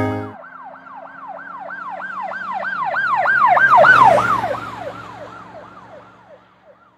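Emergency-vehicle siren on a fast rise-and-fall yelp, about three cycles a second, growing louder to a peak about four seconds in and then fading away as it passes by.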